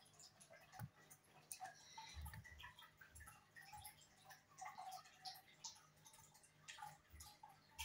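Near silence: room tone with a few faint small clicks and soft taps.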